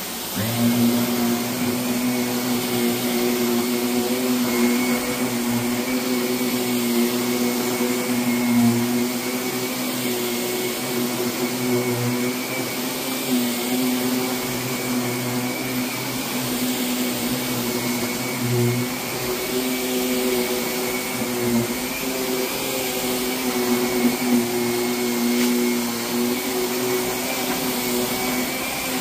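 Vacuum cleaner running on a rug, coming on right at the start and then running steadily: a constant rushing hiss with a low motor hum and a thin high whine.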